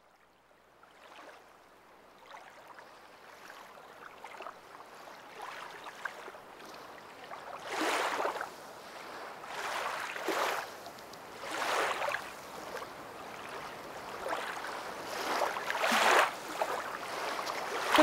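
A surf-like wash of noise fades in gradually from near silence, then swells and ebbs in several surges every couple of seconds, like waves breaking, with no steady pitch in it.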